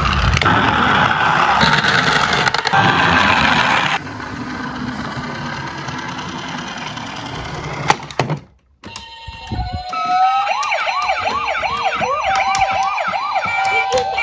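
A toy emergency vehicle's electronic siren, starting about ten seconds in and sweeping quickly up and down, about two to three times a second. Before it there are several seconds of loud, rough rattling noise and a sharp click.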